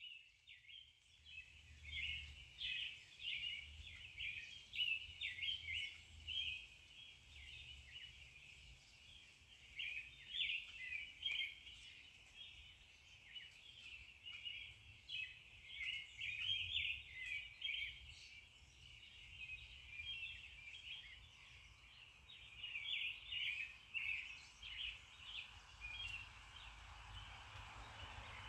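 Small birds chirping in short irregular bursts, faint and continuous, over a faint low background rumble.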